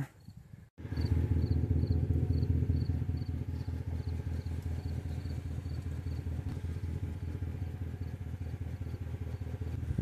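Small vehicle engine running steadily at low speed, heard from aboard the slowly moving vehicle: a low rumble with a faint regular ticking. It cuts in abruptly after a brief silence just under a second in.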